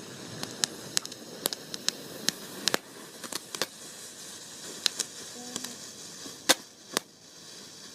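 Small fireworks crackling: a quick irregular string of sharp pops over a faint hiss, thinning out after a few seconds, with the two loudest cracks close together near the end.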